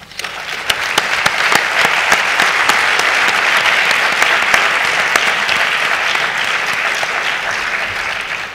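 Audience applause in a hall, many people clapping steadily, starting as the talk ends and cut off abruptly at the end.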